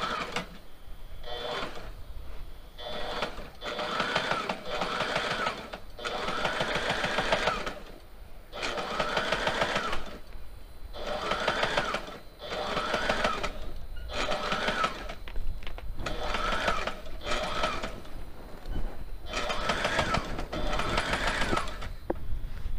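Sewing machine stitching clear vinyl dodger panels in repeated runs of one to two seconds with short pauses between them. Its motor rises and falls in pitch with each run.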